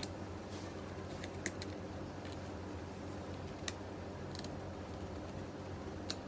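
Scattered sharp plastic clicks and taps of a small laptop being taken apart by hand, about eight in all, over a steady low hum.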